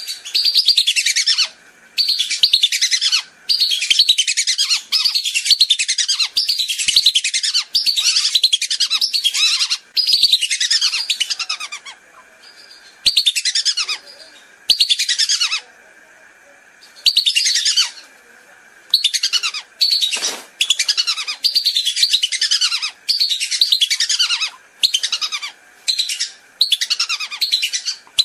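Whistling duck calls played back as a hunting lure: rapid high, thin whistles, each falling in pitch, repeated several a second in runs with short pauses between.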